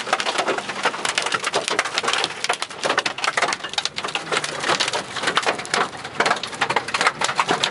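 Hailstones pelting a car's body and glass, a dense, irregular clatter of sharp clicks and knocks, heard from inside the car.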